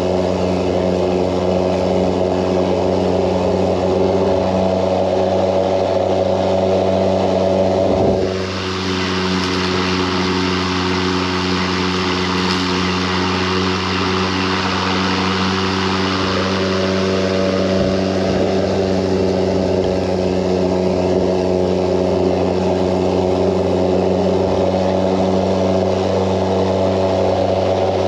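EGO Power+ LM2125SP 56 V battery self-propelled lawn mower running with a steady, fan-like hum. About eight seconds in, a rushing hiss joins it for some eight seconds and then fades out.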